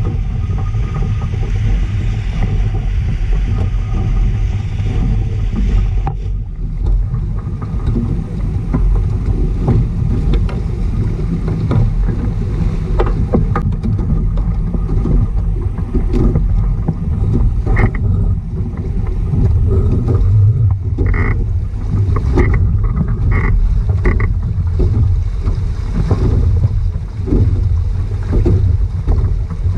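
Wind buffeting the microphone with water washing along the hulls of a small sailing catamaran underway, a steady low rush. The higher hiss drops away suddenly about six seconds in, and a few short high squeaks come in the second half.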